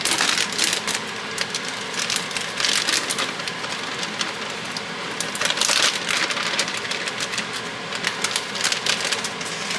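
Mixed vegetables poured from a bag into a pot of broth: a dense patter of small pieces falling in, coming in several louder surges, the loudest about halfway through.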